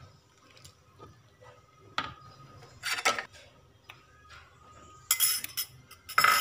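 Metal ladle knocking and clinking against a metal wok of fish curry, a handful of separate knocks, the loudest about three seconds in and again at the very end.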